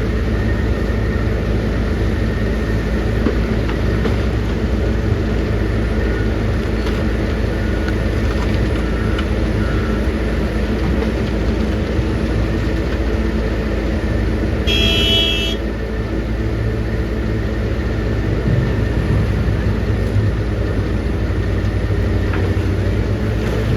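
Heavy diesel engine of a working excavator running steadily under load. A brief high-pitched tone sounds about fifteen seconds in.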